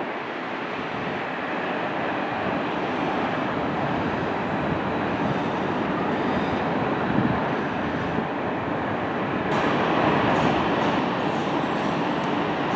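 Airbus A320 jet engines running, heard from a distance as a steady rushing roar. About nine or ten seconds in it grows a little louder and brighter.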